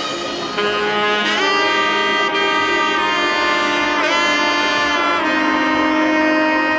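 Background music: a saxophone melody of long held notes, bending in pitch near the start and again in the middle.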